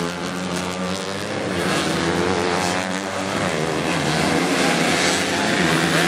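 Two-stroke 110–125 cc underbone motorcycle engines racing on a dirt track, buzzing and revving, their pitch rising and falling with the throttle.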